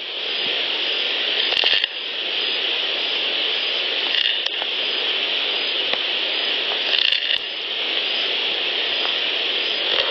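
Steady high hiss of a field recorder's background, with a few faint brief scratching clicks about one and a half, four and a half, and seven seconds in.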